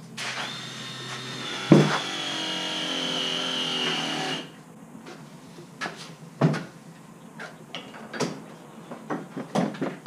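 Handheld gas torch flame hissing with a high whistle, cut off suddenly about four seconds in, with a sharp knock partway through. Then scattered knocks and clicks as the soldered copper pipe and tools are handled.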